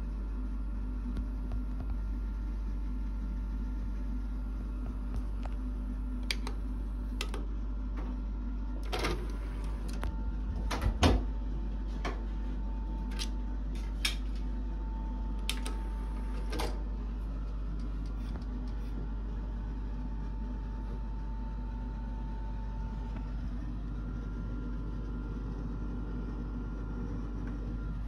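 Sharp mechanical clicks and knocks from a Yamaha CRX-E150 CD receiver's buttons and disc tray being worked, about a dozen spread through the middle stretch with the loudest a little before halfway, over a steady low hum.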